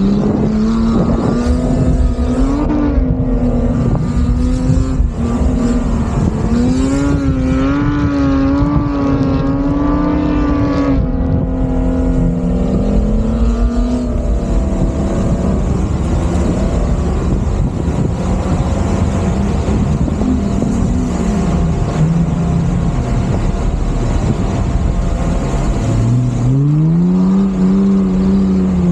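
Jeep Wrangler's engine revving hard under load in soft sand. The pitch climbs at the start and holds high and wavering for the first ten seconds or so, drops off around the middle, then climbs again near the end, over a steady rushing noise.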